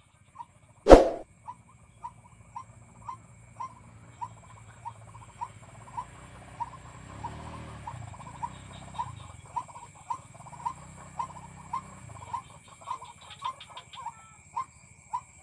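White-breasted waterhen call: a short note repeated about twice a second, quickening slightly toward the end. A single sharp knock about a second in is the loudest sound.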